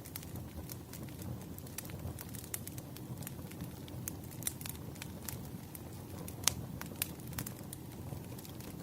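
Campfire crackling: a steady low rumble of burning wood, with frequent sharp, irregular pops and snaps. One pop stands out louder than the rest about six and a half seconds in.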